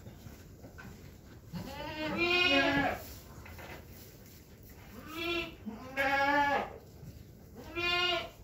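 Goats bleating: four wavering calls, the first and longest about two seconds in, then three more close together in the second half.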